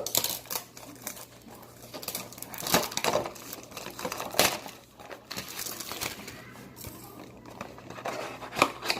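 A box of trading cards being torn open by hand: its wrapping crinkles and tears, with irregular sharper rips and taps, the loudest about three, four and a half, and eight and a half seconds in.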